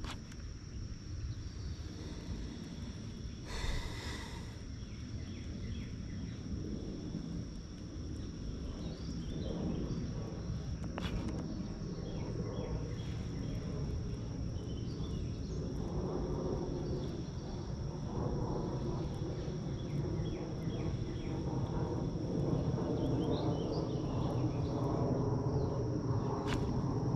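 Outdoor ambience: insects trilling steadily as two even high tones over a low rumble that grows louder toward the end, with a brief rush of noise about four seconds in.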